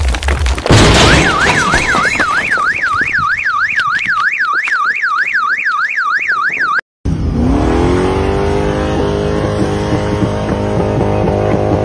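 A loud crash as a slab of ice and snow slams onto an SUV, then a car alarm wails rapidly up and down, about three and a half cycles a second. It cuts off about seven seconds in, and a car engine revs up and holds a steady note.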